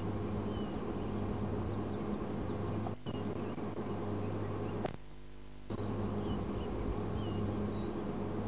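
A steady low hum with faint short bird chirps scattered over it. The sound drops out briefly a little past halfway.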